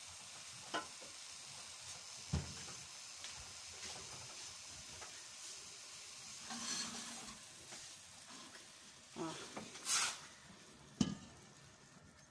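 Chopped tomatoes and onion sizzling gently in olive oil in a saucepan. A few sharp knocks break in, and near the end the pan and spatula scrape and clatter as the stirring starts.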